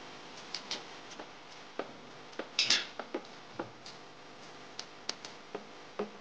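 Light, irregular clicks and taps of a steel tape measure and a marker against a steel bar as it is measured and marked, with one short scratch about two and a half seconds in.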